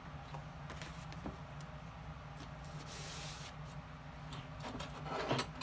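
Light scraping and rubbing on a Goodyear-welted boot's exposed footbed as leftover crumbled cork is worked off, over a steady low hum. A brief hiss comes about three seconds in, and a few louder handling knocks come near the end.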